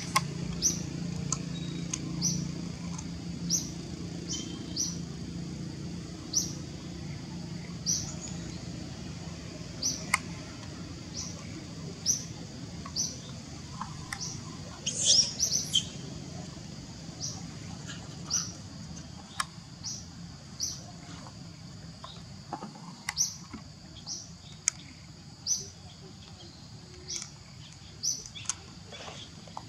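A bird calling with short high chirps about once a second, with a louder flurry of high calls about fifteen seconds in, over a low steady background hum.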